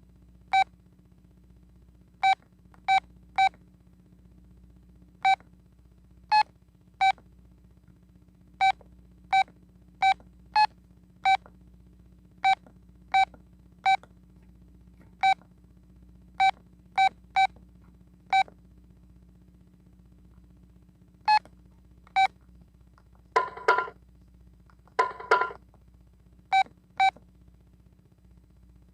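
Keypad beeps of an old Telit mobile phone as its buttons are pressed: short single beeps of one pitch, coming irregularly, sometimes two or three in quick succession. Near the end come two longer, fuller tones.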